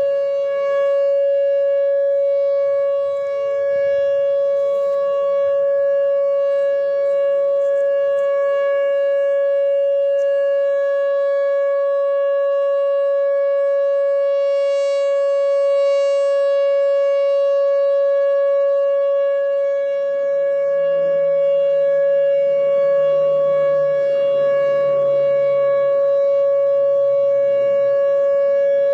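A loud siren tone held steady on one pitch, unbroken for the whole stretch. Faint lower tones slide slowly downward underneath it in the last third.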